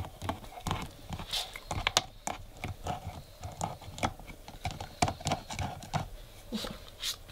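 A Weimaraner puppy's teeth clicking and knocking on a plastic treat-puzzle toy, its cylinders rattling on the frame as she mouths them: irregular light plastic clicks and taps.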